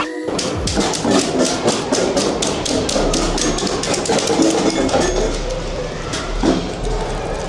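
Raindrop-music exhibit: drops striking a row of cups, bowls and metal pieces. It makes a steady rapid patter of taps and short plinks, several a second.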